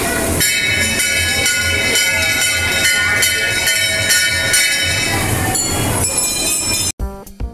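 Large brass temple bells rung over and over, a loud, continuous clanging of many overlapping ringing tones. It cuts off suddenly near the end, where background music comes in.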